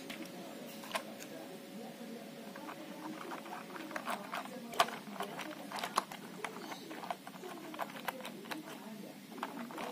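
Plastic model railway coaches handled by hand on the track: light clicks and taps as the cars are pushed along the rails and coupled together, one click about a second in and a quick run of them from about four seconds on.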